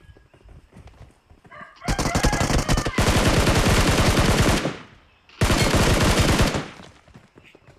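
A string of firecrackers (saravedi) going off in rapid crackling runs. The cracks start about two seconds in, blur into one dense roll, pause briefly, and then a second run follows before they die away.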